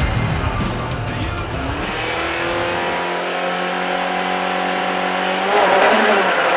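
Renault Clio Group A rally car's four-cylinder engine revved on the start line. The pitch rises about two seconds in and is held steady at high revs, then the car pulls away near the end with a louder, rougher rush of engine and tyre noise.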